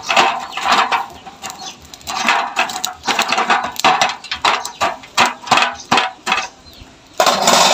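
Chickens clucking close by, mixed with clinking and clattering of a wire grill grate being handled over a steel charcoal grill box.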